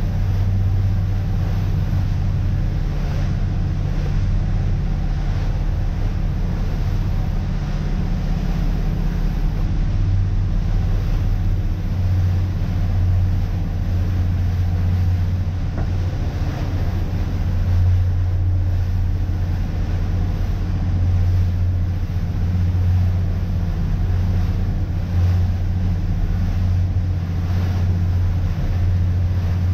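A motor cruiser's engines droning steadily at cruising speed, a deep even hum heard from inside the cabin, with a light hiss of water and wind over it.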